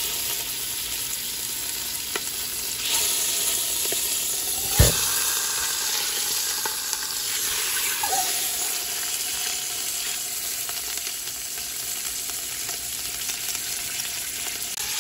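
Beef roast searing in hot oil in a stainless steel stock pot, a steady sizzle that swells about three seconds in as the meat is turned onto a new side to brown. A single sharp knock about five seconds in stands out above the sizzle.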